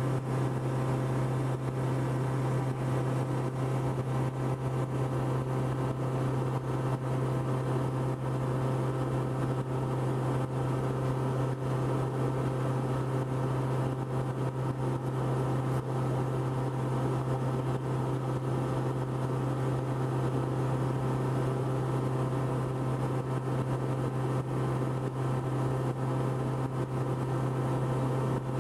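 Steady in-cabin drone of a Cessna 162 Skycatcher's piston engine and propeller in cruise flight, a constant low hum with no change in pitch.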